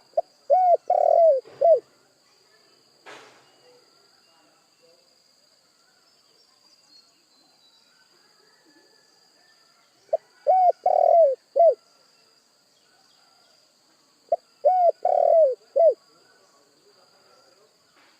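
Spotted dove (tekukur) cooing: three separate phrases of several hoarse, arching coo notes each, one near the start, one about ten seconds in and one about fourteen seconds in.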